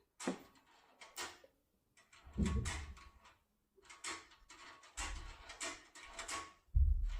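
Metal clicks and scrapes as a pick tool is worked inside a lever door lock and turned, in irregular clusters with handling knocks.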